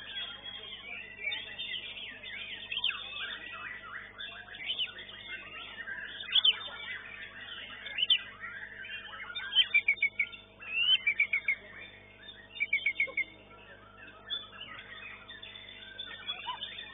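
White-rumped shama (murai batu) singing a varied song of whistles, chirps and trills, with bursts of quickly repeated notes around the middle.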